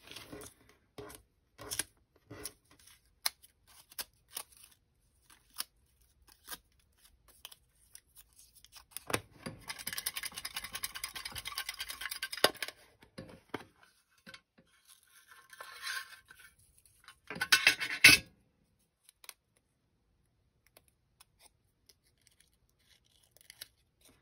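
Small folded paper slips being handled and shuffled on a tabletop: scattered light taps and crinkles, longer stretches of rustling and rubbing, and a short, louder scrape about three-quarters of the way through.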